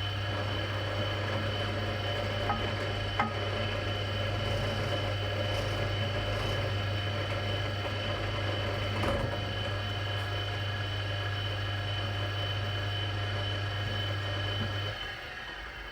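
Drill press running steadily with a deep motor hum while a 3/8 in. bit cleans out and deepens the truss-rod anchor hole in the wooden mandolin neck, with a few light knocks; it switches off about a second before the end.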